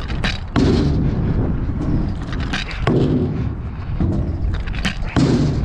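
Freestyle scooter on a ramp, its deck and wheels clacking and knocking again and again as the rider spins the bars and lands back-to-back stalls, over a steady low rumble.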